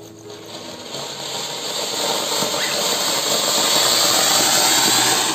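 Ground fountain firework (anar, or "flower pot") spraying sparks with a steady hiss that grows louder over the first few seconds as the fountain builds to full height.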